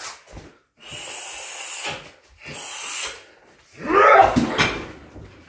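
A man's heavy, loud breaths, twice, then a loud drawn-out yell whose pitch rises and falls, about four seconds in.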